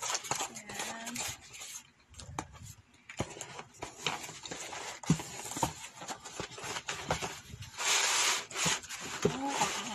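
Laptop packaging being unpacked by hand: rustling and rubbing with scattered knocks and clicks, and a louder stretch of rustling about eight seconds in.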